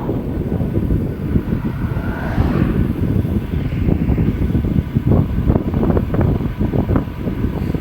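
Wind buffeting the microphone while riding a road bike: a dense low rumble broken by frequent, irregular crackling gusts.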